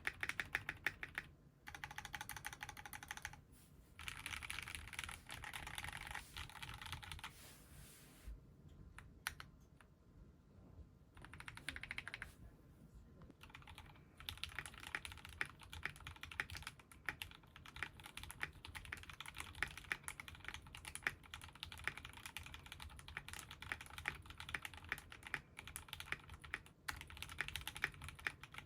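Typing on a GAMAKAY K61 Pro 60% gasket-mounted mechanical keyboard with lubed Gateron Milky Yellow linear switches: a fast, creamy run of keystrokes. The typing thins to a few scattered presses about a third of the way in, then picks up again.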